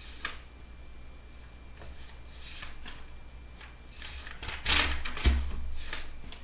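Scattered rustles and light knocks from handling things at a desk, the loudest a clatter about four and a half seconds in followed by a dull thump.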